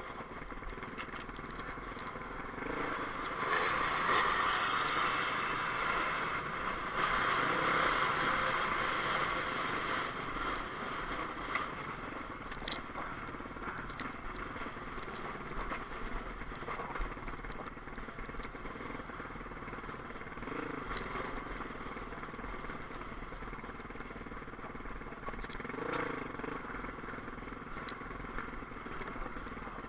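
Dirt bike engine running steadily as it rides a rocky desert single track, heard from a helmet-mounted camera along with rushing wind. A few sharp clicks come partway through.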